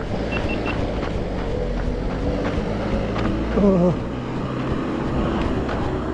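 Engine of a flatbed truck carrying a tractor, passing close by through an intersection: a steady low rumble, with wind on the microphone.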